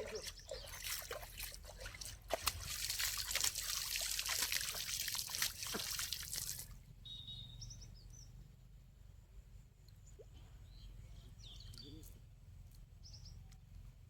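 Water splashing and trickling, with many small clicks and splashes, which stops abruptly about six and a half seconds in. Short high bird chirps follow.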